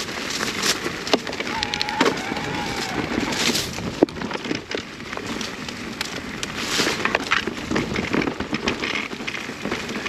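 Electric mountain bike riding down forest singletrack: tyres rolling and crackling over loamy, beech-leaf-covered dirt, with a stream of clicks and rattles from the bike.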